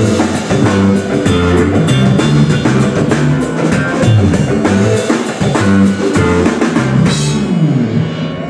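Live blues-rock trio playing: electric guitar, electric bass and drum kit in a funky groove, with a crash of high hiss about seven seconds in.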